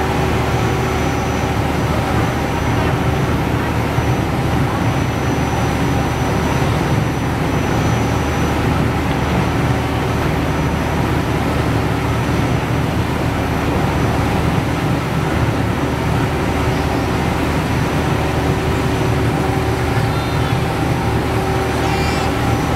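Ferry engine running steadily under way: a constant drone with a few held tones, mixed with the rush of water from the wake.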